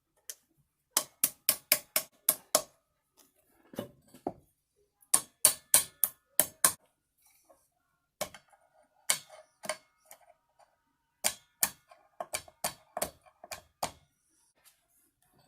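Pliers clicking and tapping on metal while a split pin is pushed through a castle nut and its legs bent over to lock it. The clicks come in three quick runs of five to seven, with scattered single clicks between.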